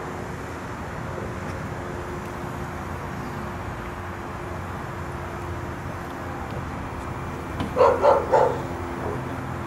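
A dog barks three times in quick succession about eight seconds in, over the steady hum of helicopters running on the ground.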